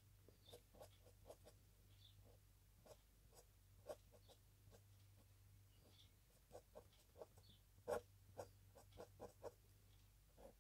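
Faint irregular scratches and taps of a fine-tipped pen drawing on paper, a few slightly louder strokes among them, over a faint steady low hum.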